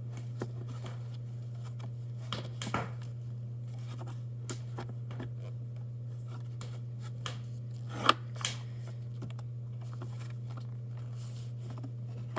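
Hands fitting a pre-oiled foam air filter into a dirt bike's airbox: scattered small clicks, scrapes and rustles, the loudest two sharp clicks about eight seconds in, over a steady low hum.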